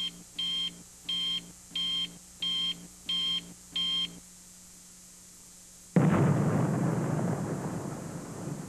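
Seven short electronic beeps at an even pace, then after a pause of about two seconds a sudden loud blast that slowly dies away, like a countdown ending in an explosion.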